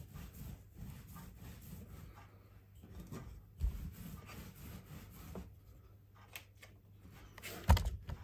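Wooden rolling pin rolling back and forth over cinnamon-star dough spread on sugar, a low uneven rubbing rumble. A few knocks break in, the loudest near the end.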